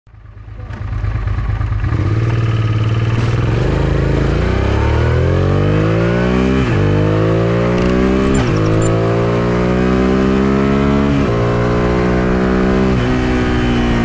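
Suzuki SV650S 90-degree V-twin with an Akrapovic full exhaust system accelerating hard, its note climbing and then dropping at each of several quick upshifts. The sound fades in over the first couple of seconds.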